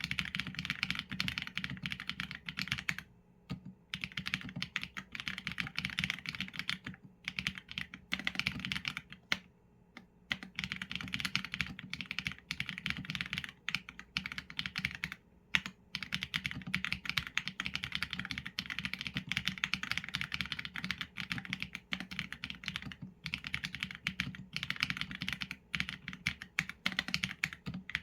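Continuous typing on a Qsenn A75 mechanical keyboard with Leobog Graywood v4 linear switches and PBT keycaps: fast runs of keystrokes broken by brief pauses every few seconds.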